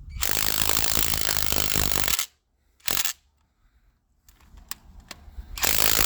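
Impact wrench hammering on cylinder head bolts to break them loose: a rattling burst of about two seconds, a brief blip about three seconds in, and another burst near the end.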